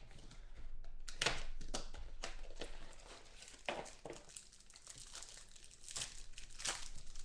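Trading-card pack wrapper being torn open and crinkled by hand: a run of short rustling tears and crinkles.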